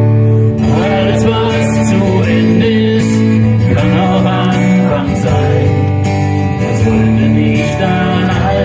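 Live acoustic music: two acoustic guitars playing, with a man's singing voice coming in about half a second in.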